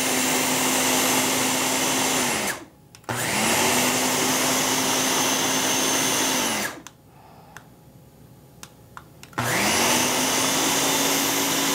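Countertop blender puréeing potato soup in bursts. The motor runs, stops briefly about two and a half seconds in, runs again, then pauses for nearly three seconds before starting up once more, its whine rising in pitch as it spins up and falling as it stops.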